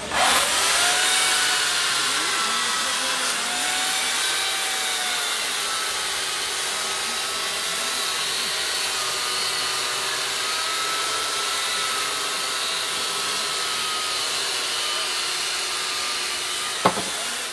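Electric chainsaw cutting into a block of ice: it starts abruptly, runs steadily with a slightly wavering whine, and cuts off with a click near the end.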